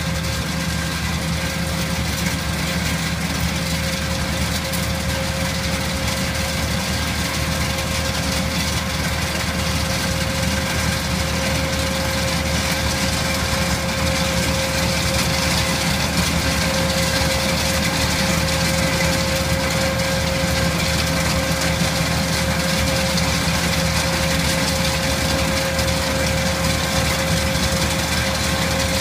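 Tractor engine running steadily under load while driving a GIAMPI STAR 1800 Plus tractor-mounted nut harvester, its inter-row arm's sweeper rotor spinning, with a steady whine over the engine drone.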